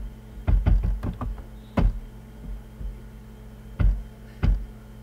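Computer mouse clicking: a quick run of clicks and knocks in the first second or so, then single sharp clicks about two, four and four and a half seconds in, over a steady low hum.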